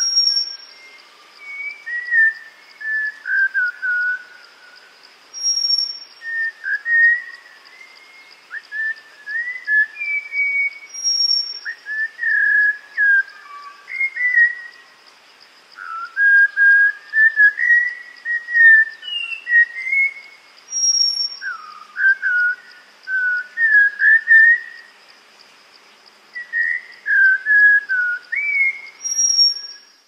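Malabar whistling thrush singing: varied, melodious whistled phrases that rise and fall, in bursts with short pauses between them. This is the male's summer whistling song.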